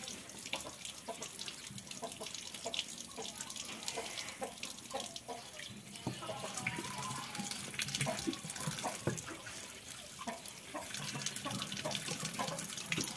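Tap water running into a sink basin and splashing over plucked chicken carcasses as hands rinse and rub them, with many small wet splashes and slaps.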